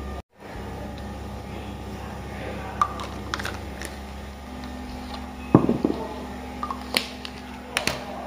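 Close handling noise as a cat is picked up near the camera: cloth brushing and scattered small clicks and knocks, with one louder knock about five and a half seconds in, over a steady low hum.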